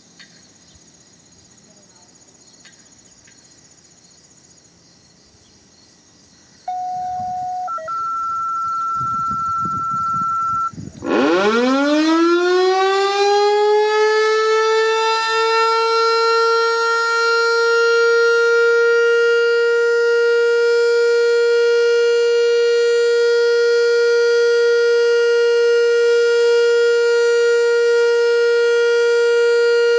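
American Signal T-112 outdoor warning siren sounding a full alert: it winds up from a low pitch starting about 11 seconds in and settles by about 17 seconds into one loud, steady high tone. Before it, about 7 seconds in, come two short steady tones, a lower one and then a higher one.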